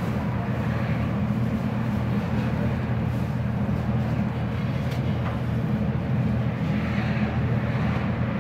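A steady low machine hum, unchanging in level, with a couple of faint clicks over it.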